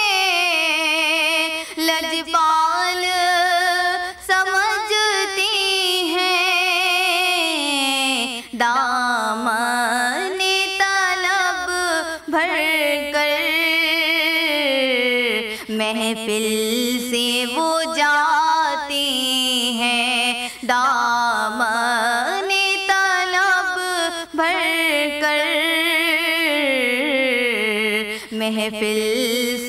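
A young woman singing a naat, a devotional poem in praise of the Prophet Muhammad, solo into a microphone. It is sung in long held, wavering notes with gliding melodic turns, each phrase sinking to a low held note at its end.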